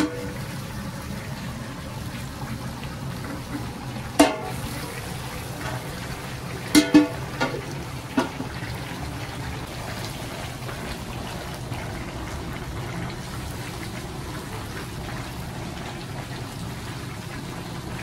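Zirvak boiling in an uncovered kazan, a steady bubbling of broth, broken by a few sharp clanks about four and seven seconds in.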